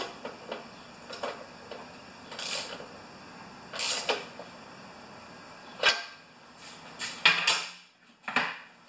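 Ratchet tightening a new spark plug into a Honda mower engine: short ratcheting strokes, one about every second or so. Near the end come a few sharper clicks and knocks as tools are handled.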